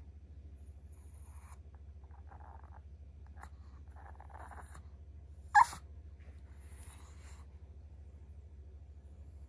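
A long-coat Chihuahua gives one short, sharp yip about halfway through, over faint rustling and a steady low hum.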